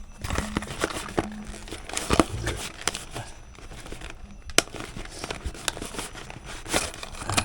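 Packaging being handled and opened: irregular crinkling and rustling with sharp clicks and crackles.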